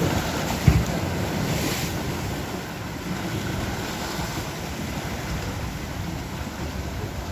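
Atlantic surf breaking and washing up the shore, with wind rumbling on the microphone. A brief low thump comes just under a second in.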